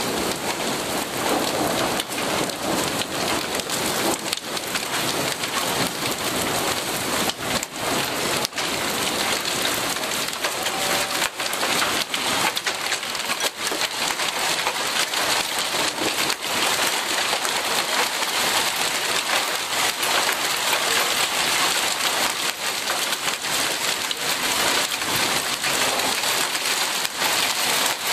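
Rain and small hail coming down steadily, with many sharp separate pellet hits on a wooden deck.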